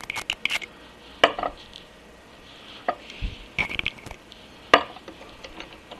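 Thumb-pump oil can clicking as oil is squirted into a bore in a cast-iron lathe apron, mixed with light knocks of small steel parts being handled. The clicks come singly and in short runs, the sharpest one about three-quarters of the way through.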